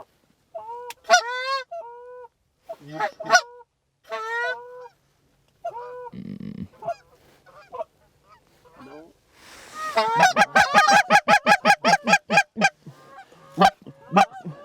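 Canada goose honking: separate honks with short gaps, then a fast run of clucking honks, about four or five a second, starting about ten seconds in.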